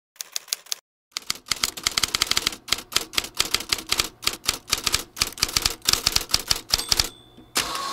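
Typewriter sound effect: rapid runs of key clacks with short pauses, then a brief ring and a short rasp near the end.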